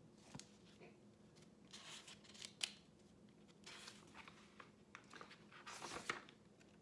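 Pages of a picture book being turned and handled: several soft paper rustles and swishes, with a light click about two and a half seconds in.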